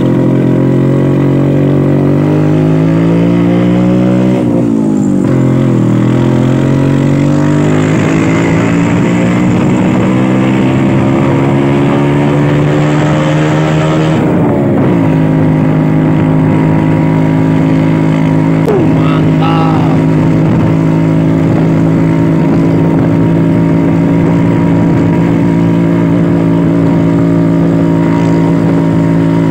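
Old two-stroke Vespa scooter engine pulling uphill, its pitch rising through the gears with two sharp drops at gear changes, about five and fourteen seconds in, then holding steady. The exhaust is broken, so the engine runs loud with a raw 'brot' note.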